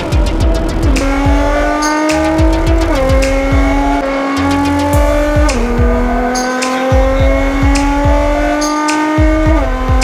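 A car engine pulling hard under acceleration, its pitch creeping up and then dropping at each upshift, about four shifts. Music with a steady beat plays along.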